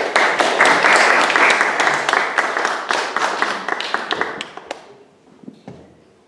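Audience applauding: many hands clapping, starting all at once and dying away after about four and a half seconds.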